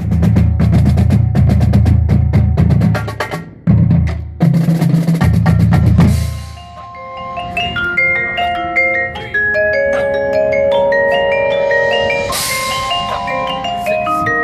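Marching band pit and percussion warm-up. For about six seconds there are fast, even drum strokes over low held tones, ending in a cymbal crash. Then mallet keyboards ring out overlapping notes in a slow chord sequence, with a cymbal swell about twelve seconds in.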